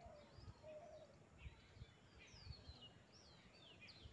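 Faint birds chirping, with quick sweeping high notes throughout and a short lower whistled note repeated in the first second. A few low, muffled bumps.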